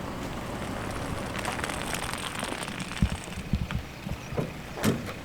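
Truck engine idling as a steady low rumble, with several short knocks and crunches over the second half.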